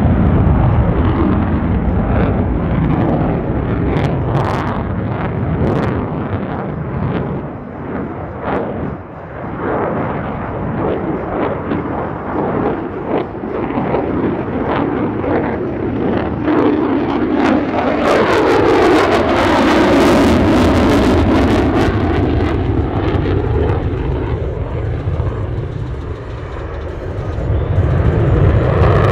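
F-35A Lightning II's single Pratt & Whitney F135 afterburning turbofan in afterburner, loud and crackling as the fighter flies its demo. About eighteen seconds in there is a sweeping whoosh that falls and then rises in pitch as the jet passes closest.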